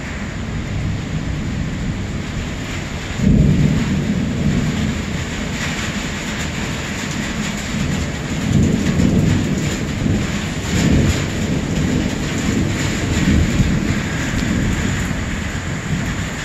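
Heavy rain falling steadily during a thunderstorm, with thunder: a sudden loud peal about three seconds in, then low rumbles coming and going through the second half.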